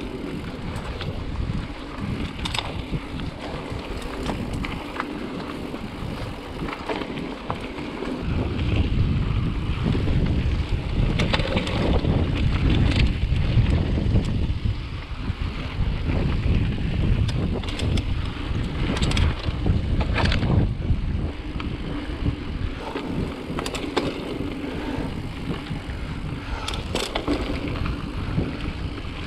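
Mountain bike riding down a dirt singletrack: wind buffeting the microphone over the rumble of knobby tyres on dirt, with frequent clicks and rattles of the bike over bumps. The rumble gets heavier about eight seconds in as the speed picks up.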